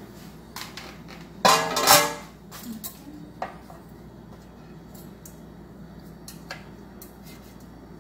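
Kitchen dishes and utensils clattering: one loud ringing clatter about a second and a half in, followed by a few light clicks.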